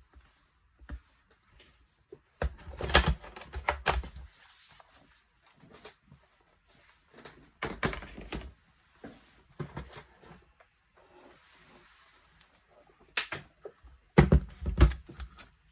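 Clicks, taps and knocks of hands handling a MacBook Pro, its aluminium bottom case being set back on loosely, in irregular clusters with the loudest knocks a few seconds in and near the end.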